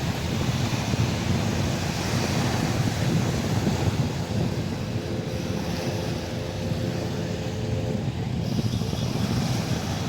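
Wind buffeting the microphone over the wash of sea surf, steady throughout.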